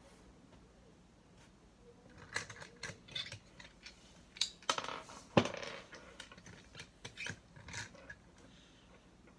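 Small clicks, taps and scrapes of a G1 Optimus Prime toy's plastic cab parts being handled and folded on a wooden tabletop. They start about two seconds in, with the loudest knock around five seconds in.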